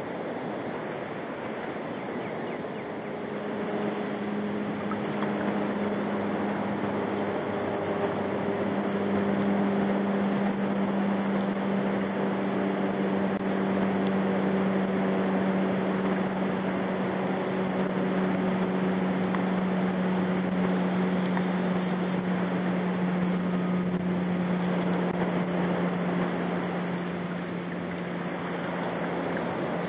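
A boat motor running steadily with a low hum over wind and water hiss; it starts a few seconds in and stops near the end.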